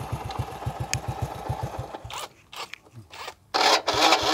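Honda Super Dream motorcycle's single-cylinder engine running, then dying away about two seconds in. About a second later the electric starter motor cranks it with a rough, rhythmic whir. The starter pulls fairly strongly but is a bit wheezy on a weak battery.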